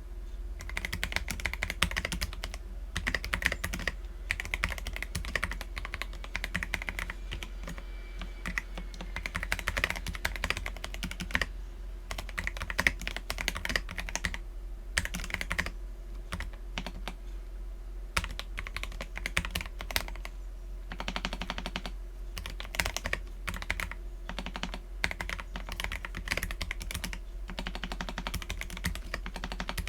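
Typing on an Akko PC75B mechanical keyboard with lubed Akko Jelly Black linear switches and Cherry-profile PBT keycaps. Keystrokes come in quick runs broken by short pauses.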